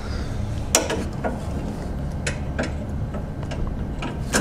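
About half a dozen scattered metal clicks and knocks as a socket extension and cordless impact wrench are fitted onto a bolt, over a low steady hum.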